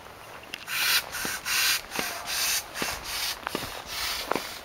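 Footsteps crunching on dry, gritty forest ground, a step about every half second, with a few sharp knocks in between.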